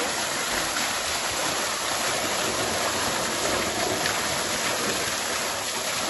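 Small waterfall pouring steadily off a rock ledge, its water splashing down in a continuous rushing hiss.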